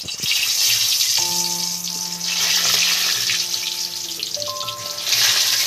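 Potato pieces sizzling as they fry in hot mustard oil, a loud steady hiss that starts as they go in and swells again near the end. Quieter background music with held notes comes in about a second in.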